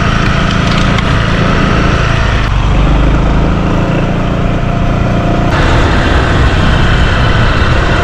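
A motor vehicle's engine running steadily under loud wind rush and road noise, as heard from a vehicle moving alongside a cyclist. The character of the noise shifts abruptly about two and a half and five and a half seconds in.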